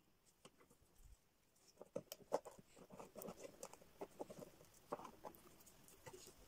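Faint small taps, crackles and rustles of dry tree-bark pieces being handled and pressed onto a cardboard birdhouse, busier from about two seconds in.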